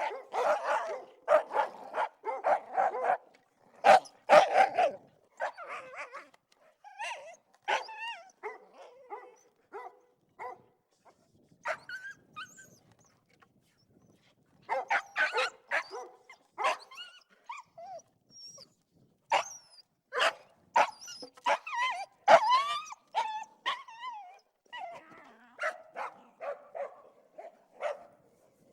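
A Labrador and two sheepdogs barking in irregular bursts with short pauses, mixed with some higher yips and whines.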